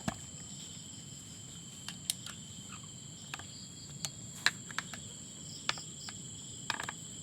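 Steady high-pitched chorus of crickets, with scattered light clicks and taps throughout and a quick cluster of clicks near the end.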